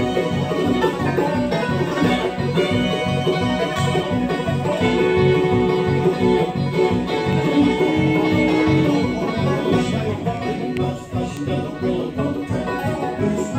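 Live bluegrass band playing an instrumental passage on fiddle, resonator guitar, mandolin and acoustic guitar, with long held notes about five to nine seconds in.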